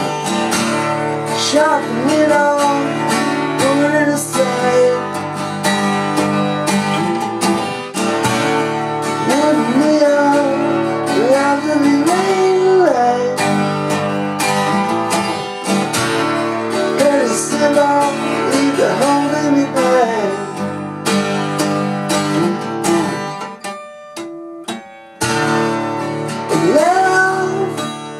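Acoustic guitar strummed steadily, with a melody line above it that slides and bends between notes. The playing drops away briefly a little after 23 seconds in, then comes back in strongly about 25 seconds in.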